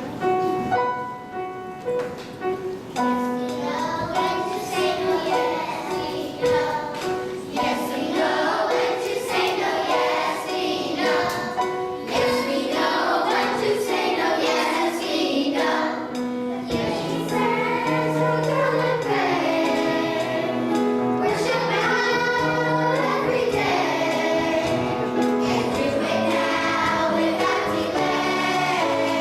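A song with a group of voices singing over instrumental accompaniment.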